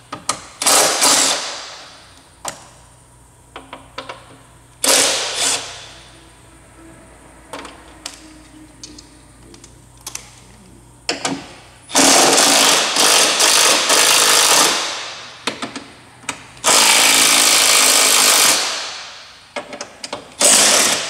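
3/8-inch cordless impact wrench hammering in bursts as it loosens bolts along the top of a truck fender: five bursts, the two in the middle the longest at about three and two seconds. Light clicks come between the bursts.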